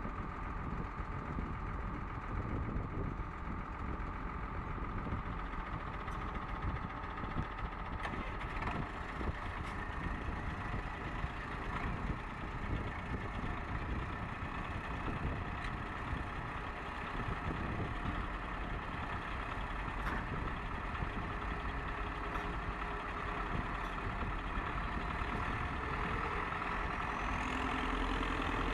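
Farm tractors' diesel engines running steadily, with a steady whine over the engine noise and a rising tone near the end.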